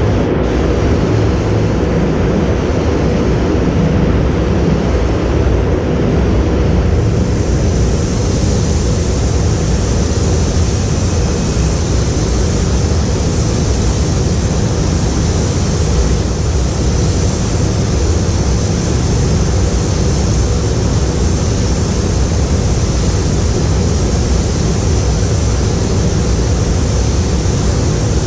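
Steady roar of a spray booth's ventilation, with compressed air hissing from a hand-held air gun on a hose that starts about a quarter of the way in and keeps going.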